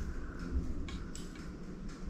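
Fingers spreading shredded cheese over a pizza in a metal pan: soft rustling with a few faint, light clicks.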